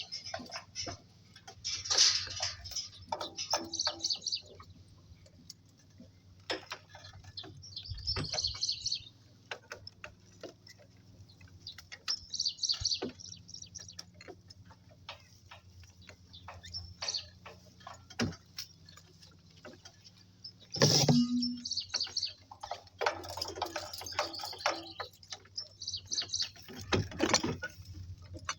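Scattered ticks and rustles of walking on the farm track, with patches of bird chirping. A louder short burst comes about 21 seconds in.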